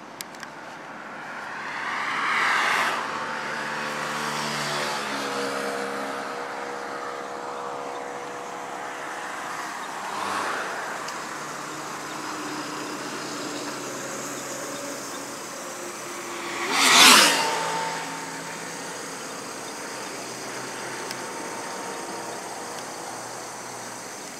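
Highway traffic passing close by: cars and trucks go by one after another, engine and tyre noise swelling and then falling in pitch as each passes. The loudest pass comes about two-thirds of the way through.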